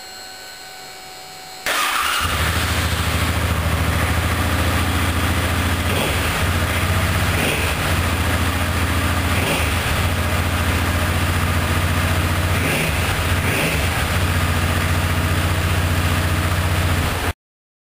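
Suzuki Boulevard C50's V-twin engine idling steadily through its stock, original-equipment dual exhaust. The engine sound comes in suddenly about two seconds in and stops abruptly near the end.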